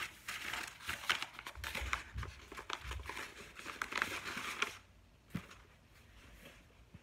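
Tissue paper rustling and crinkling as it is handled, with a few dull knocks against the table. The crinkling stops about two-thirds of the way through, leaving one small click after.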